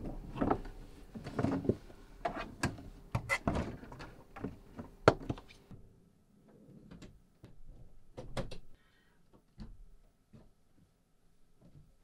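Handling noises from wooden cabinetry and cable: a busy run of knocks, clicks and rustles in the first half, then a few scattered clicks and thuds from a wooden door being worked.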